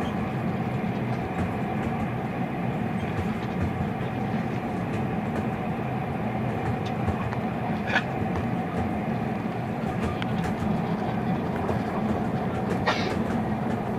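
Steady rumble inside a moving train carriage: a low running drone from the wheels on the track, broken by two short, sharp clicks, one about halfway through and one near the end.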